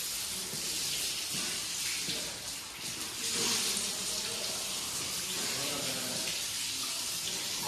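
Water running from wall faucets in a mosque ablution area as people wash for wudu: a steady splashing hiss, with faint voices behind it.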